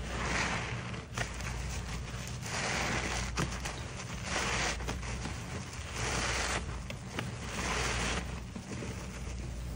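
Two lather-soaked horse sponges squeezed together in soapy water, squelching as the foam is pressed out. There are five squeezes, each lasting about half a second to a second and spaced unevenly a second and a half to two seconds apart.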